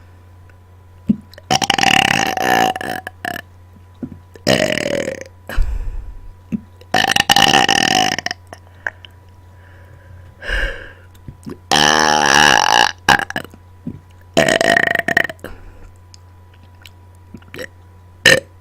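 A series of deliberate burps made right into a microphone: five long, loud ones of a second or two each with short pauses between, and two shorter ones, one of them near the end.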